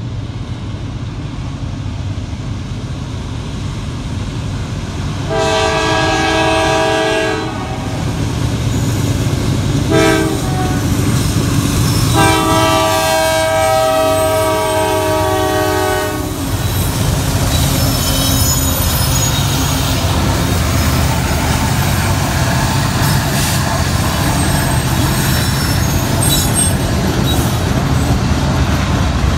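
Kansas City Southern diesel freight locomotive sounding its air horn at a grade crossing: a long blast, a short one, then a long one, each a chord of several steady tones. The locomotive and train then rumble past with steady rail and wheel noise.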